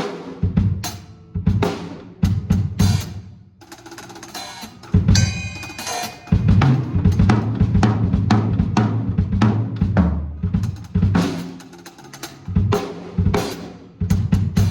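Drum kit being played in a sound check: a run of sharp hits and fills, sparser at first and busiest from about five to ten seconds in.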